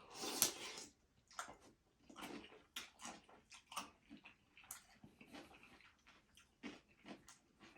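A person eating close to the microphone: chewing and wet mouth sounds coming in short, irregular bursts.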